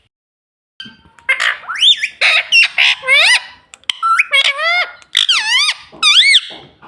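Ring-necked parakeet squawking: a run of loud, harsh calls, each swooping up and down in pitch, starting about a second in.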